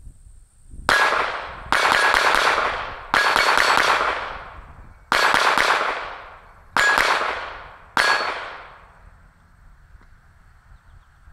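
Six 9mm shots from a Glock 19 pistol at irregular intervals, each hit setting a steel target plate ringing and fading over about a second.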